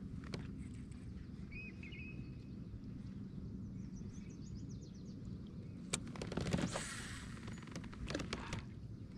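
Birds chirping a few times over a low steady rumble, with scattered clicks and a brief rushing noise about two-thirds of the way through.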